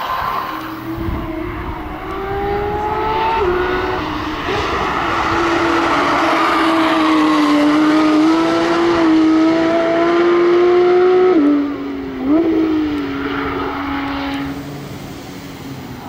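Porsche 992 GT3's flat-six accelerating hard past on the track at high revs. Its engine note climbs in steps and drops sharply at gear changes, with a quick flare in revs a little past the middle.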